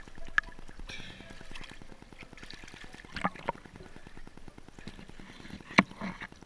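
Underwater sound of a spearfishing dive: a steady crackle of tiny clicks, with a few sharper clicks and knocks, the loudest near the end.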